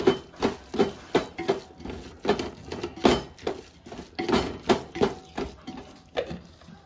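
A spoon stirring food in a cooking pot, scraping and knocking against the pot in quick irregular strokes, about two or three a second.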